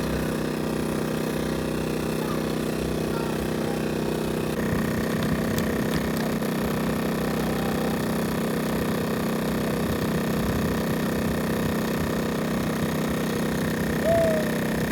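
A steady engine-like hum, changing in tone about four and a half seconds in.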